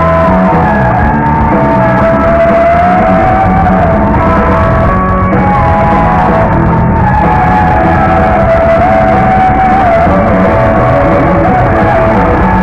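Live instrumental rock band: bass guitar, drums and two electric guitars, with a lead guitar line of long held notes that bend in pitch.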